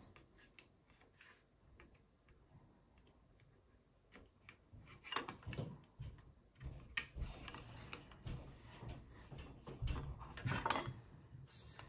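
A hobby blade scraping and shaving raised marks off plastic model-kit parts: short, irregular scrapes and small clicks, faint at first and busier from about five seconds in.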